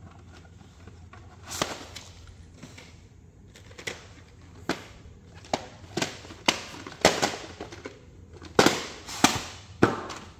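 VHS cassettes and their plastic cases being handled: a series of sharp plastic clacks and knocks, a few scattered early on and then coming thick and fast in the second half.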